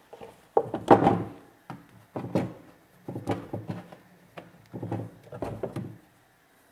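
Irregular knocks and thuds of hands and kitchen things being worked on a wooden board by the stove, about a dozen in all, the loudest about a second in.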